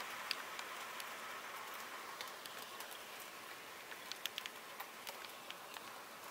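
Faint steady hiss with scattered small ticks and crackles, a few sharper ones about four seconds in.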